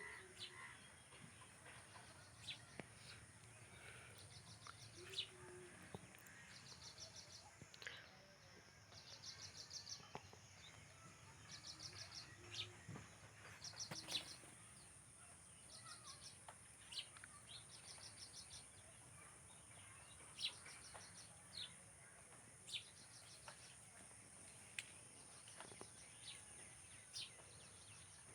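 Faint birds chirping: scattered short, high chirps, with brief rapid trills repeating every couple of seconds, over a steady faint high hiss.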